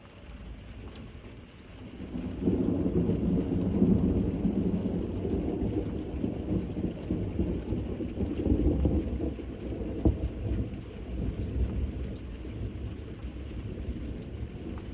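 Thunderstorm: rolling thunder over steady rain. A low rumble builds about two seconds in, peaks soon after and keeps rolling, with a sharp crack about ten seconds in.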